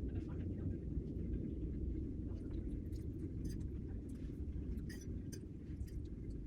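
A person chewing food close to the microphone: a steady low rumble with scattered faint clicks and mouth sounds.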